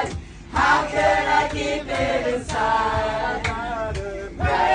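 A group of voices singing a worship chorus together, with a steady low beat of thumps underneath.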